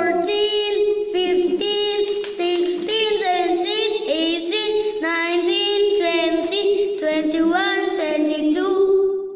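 A child singing a melody solo, without accompaniment, in long held notes. The singing stops just before the end.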